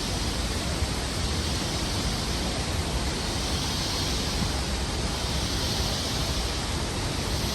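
La Fortuna waterfall, the Arenal River falling 70 metres into its pool: a steady, even rush of falling water.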